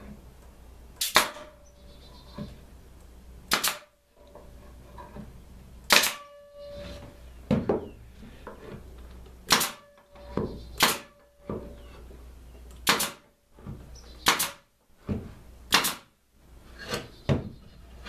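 Pneumatic nail gun firing nails into a pine birdhouse to fix its bottom in place: about a dozen sharp shots spaced a second or two apart, some followed by a short ring from the wood.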